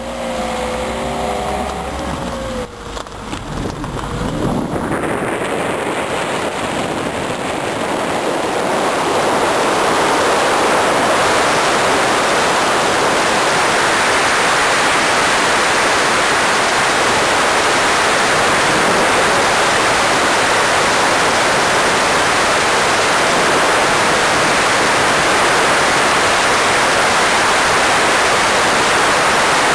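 Steady rushing of wind and road noise from a moving car, swelling over the first several seconds as it gathers speed, then holding even.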